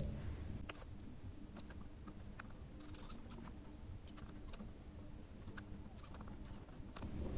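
Faint, scattered small clicks and ticks, about a dozen spread unevenly over several seconds, from small tools handling a hard disk's circuit board, over a low steady hum.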